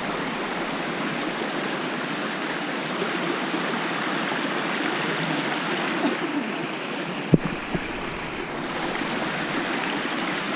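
Steady rush of water running down the rocks of a jungle waterfall. There is one sharp knock about seven seconds in, followed by a couple of small ones.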